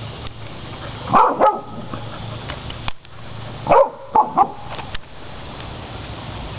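Catahoula cur hog dog barking at bayed hogs, in short bursts: two barks about a second in, then three more near four seconds in.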